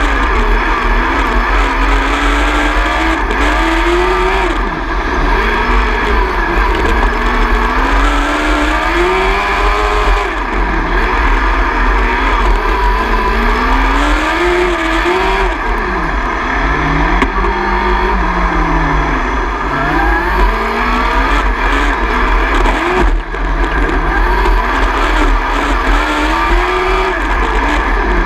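Onboard sound of a 600 micro sprint car's 600cc motorcycle engine, revving up and down in pitch every few seconds as it accelerates and lifts for the corners of a short dirt oval, over a heavy low rumble.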